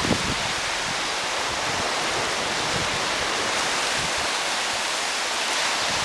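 Steady rushing noise of surf washing over a beach, with wind buffeting the microphone.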